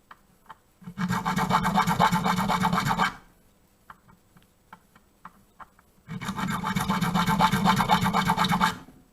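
A hand file cutting notches into a key blank: two spells of rapid back-and-forth scraping strokes, each lasting two to three seconds, with a few light clicks in the pause between them.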